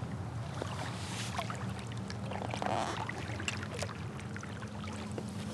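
Light water drips and small splashes around a kayak, with scattered small clicks and knocks.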